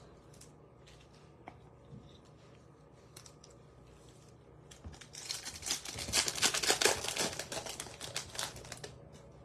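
Foil wrapper of a Topps Chrome trading-card pack crinkling as it is torn open, for about four seconds starting around five seconds in. Before that there are only a few faint taps as the packs and cards are handled.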